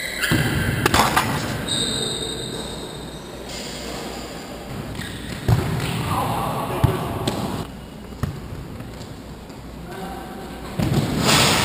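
A football being kicked and thudding on a hard sports-hall floor during indoor five-a-side, with sharp kicks about five and a half and seven seconds in, over players' shouts in the echoing hall.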